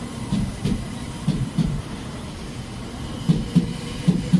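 700 series Shinkansen train running past the platform: a steady rumble with pairs of sharp wheel knocks as the cars' bogies go by, two pairs early and two more near the end.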